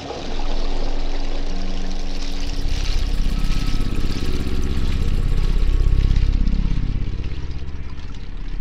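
Dark ambient drone music: a noisy, hiss-like texture with a few held tones, joined about two and a half seconds in by a deep, loud drone that throbs rapidly and has slowly sweeping overtones.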